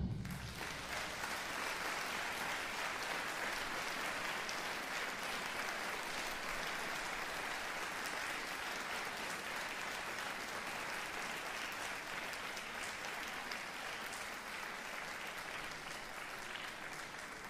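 Audience applauding, a steady dense clapping that tapers off slowly near the end.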